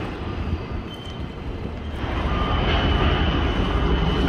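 Steady low outdoor rumble with a faint high whine, growing louder about two seconds in.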